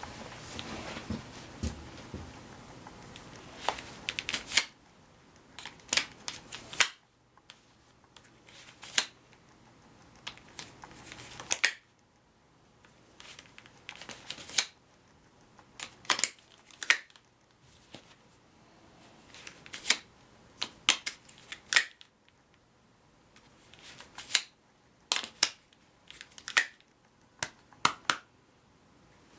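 Irregular clusters of sharp clicks and taps from hard objects being handled, over a faint low hum that cuts off and comes back several times.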